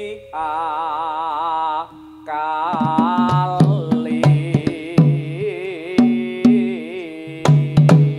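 Javanese macapat singing in the Megatruh metre, one voice holding long notes with a wide vibrato. About three seconds in, kendang hand drums enter under the voice with deep strokes that bend in pitch, repeating roughly twice a second.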